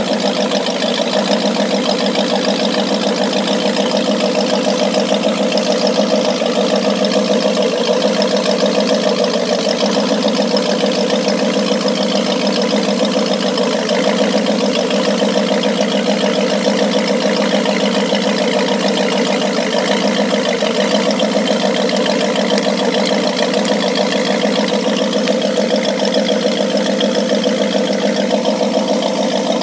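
Volvo Penta V8 inboard engine of a 1981 Donzi speedboat idling steadily, heard with its engine hatch open.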